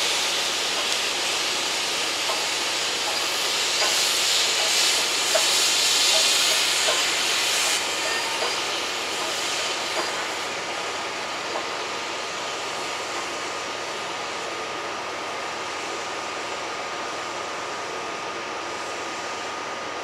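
LMS Stanier 8F steam locomotive 48151 passing with a train of coaches, its steam hissing loudly until about eight seconds in. After that the quieter, steady noise of the coaches rolling past.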